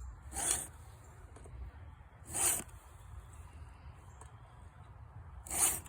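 Hand file scraping across the cutter teeth of a .325 semi-chisel chainsaw chain during sharpening. There are three short, hissy strokes, the first two about two seconds apart and the last after a longer pause.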